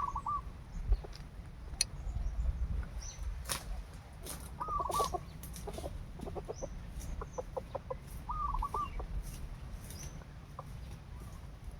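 A rooster clucking: three short arched calls, with runs of quick clucks between them.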